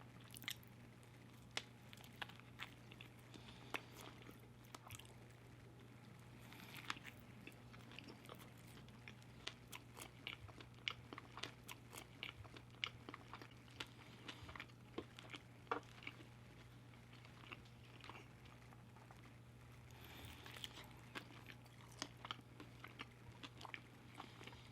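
Close-miked chewing of fast food: many small wet mouth clicks and crunches at an uneven pace, over a steady low hum.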